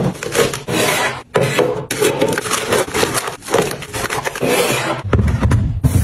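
Crinkly plastic snack pouches rustling and sliding against a hard plastic storage box as they are packed in by hand, in repeated swishing strokes with short pauses. About five seconds in, a deeper, steadier noise takes over.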